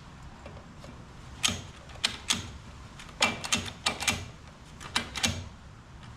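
A small hand marking tool tapping sharply against a hard surface to mark a drilling spot: about a dozen irregular clicks over four seconds.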